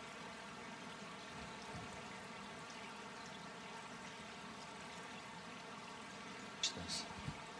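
Quiet room tone in a large church: a steady low hiss through the microphone, with two short sharp rustles near the end.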